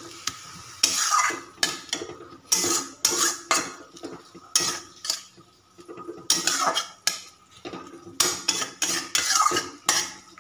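Metal spatula scraping and stirring radish greens around a metal karai in quick, irregular strokes.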